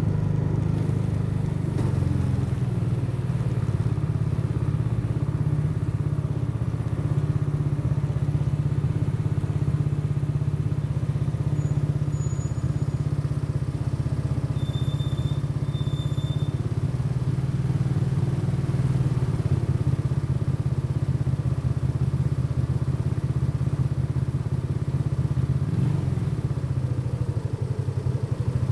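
Custom motorcycle's engine running steadily while riding, heard from the rider's seat. The engine note dips slightly about two seconds in and rises briefly near the end.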